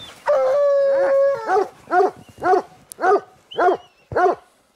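Hunting hound giving one long bawl, then barking in a steady string of about two barks a second.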